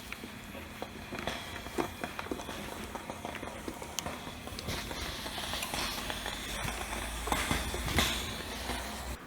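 A scatter of light clicks and knocks over a steady low hum, busier near the end, like things being handled; the hum stops abruptly just before the end.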